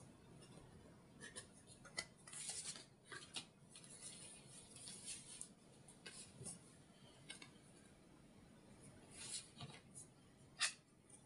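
Tarot cards being shuffled and dealt onto a cloth-covered table: faint flicks, slides and taps of the cards, with a sharper click about two seconds in and the loudest one near the end.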